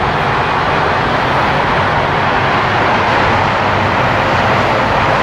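Steady roar of heavy traffic on a multilane highway, heard from high above: a continuous, even wash of road noise with no single vehicle standing out.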